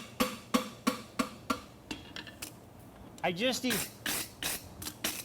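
Farrier's hammer striking a steel horseshoe on the anvil, ringing blows at a steady pace of about three a second that thin out and stop about a second and a half in, then start again near the end, as he builds up the shoe's outside edge toward the toe.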